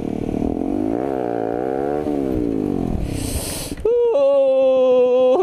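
Honda CBR150R's single-cylinder engine running at low revs, its pitch dipping and rising as the motorcycle slows and pulls off the road, with a brief hiss about three seconds in. From about four seconds a strong steady pitched tone is held to the end.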